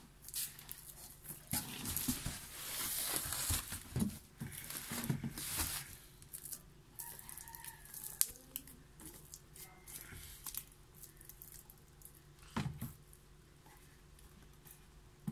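Plastic packaging wrap crinkling and tearing as it is handled, loudest and busiest over the first six seconds, then fainter rustles and light clicks, with a single knock a few seconds before the end.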